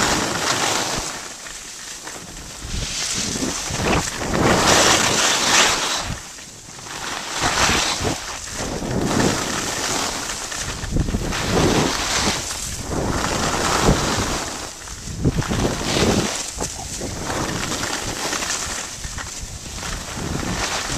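Wind noise on the microphone while skiing down a groomed run, mixed with skis scraping over packed snow. The noise swells and fades every second or two with the turns.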